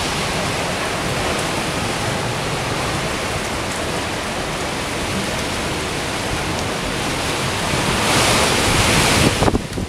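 A windstorm with heavy rain makes a loud, steady rushing noise. It swells near the end and then cuts off suddenly.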